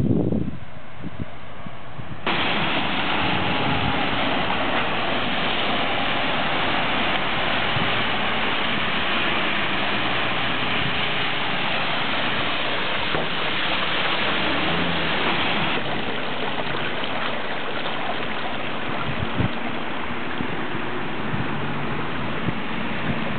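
Floodwater running over a flooded street: a steady rushing noise that sets in abruptly about two seconds in and holds on.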